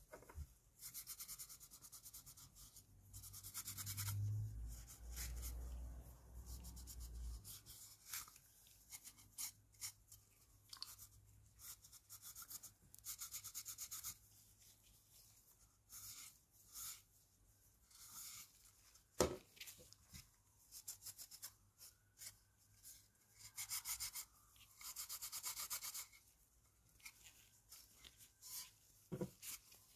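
Faint rubbing strokes of a hand tool on plastic model kit parts, in bursts of a second or two with pauses between. A few light clicks and knocks of parts being handled come in between, with a sharper click about two-thirds of the way in.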